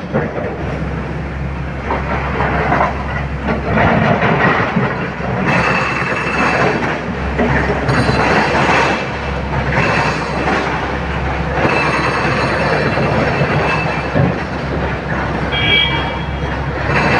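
SANY hydraulic excavator's diesel engine running under load with its hydraulics working, while broken rock scrapes and clatters as the bucket digs into the pile and as a bucket load drops into the steel body of a dump truck.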